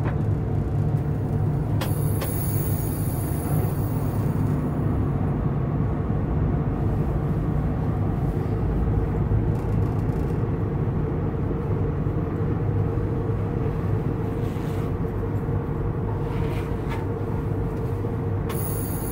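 Steady running noise inside the cab of a DB class 111 electric locomotive moving along the track, a low hum under it. A thin high-pitched hiss comes in about two seconds in for a couple of seconds and again near the end.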